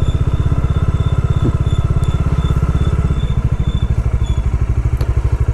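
Bajaj Dominar 400's single-cylinder engine running at low revs, its exhaust beating in a fast, even pulse.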